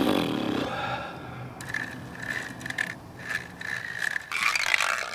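A brief louder sound at the start, then a spinning fishing reel being cranked: its gears whir in short runs with pauses, louder near the end.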